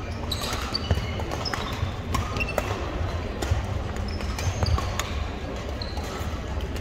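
Badminton play in a sports hall: sneakers squeaking in short chirps on the hardwood floor, clicks of rackets hitting shuttlecocks and thuds of footfalls, over a murmur of voices in the hall.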